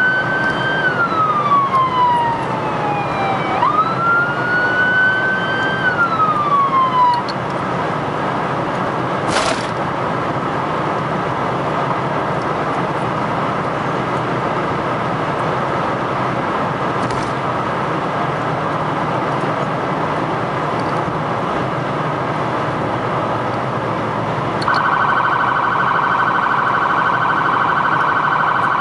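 Emergency-vehicle siren wailing on a responding vehicle, rising and falling twice before it stops about seven seconds in. The vehicle's road and cabin noise runs steadily after that, with one sharp knock. Near the end a steady, rapidly pulsing high tone starts.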